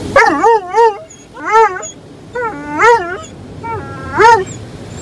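Doberman pinscher barking and whining in about five loud, high-pitched, wavering yelps, each bending up and down in pitch, alarmed by the automatic car wash working on the car around it.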